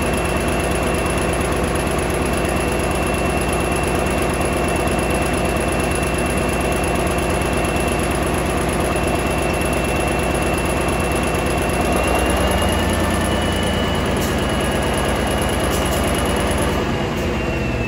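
Caterpillar D397 V12 diesel engine running steadily, with a thin high whine over it. About twelve seconds in its note changes as the engine speed shifts, and the level drops slightly near the end.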